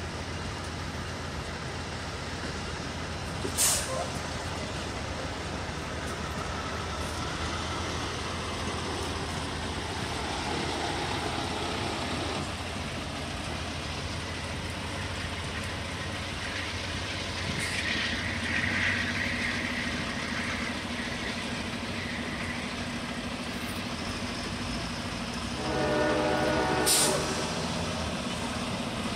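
Amtrak passenger train cars rolling past on the rails, a steady rumble with a few sharp clicks. A short pitched tone sounds near the end as the last car goes by.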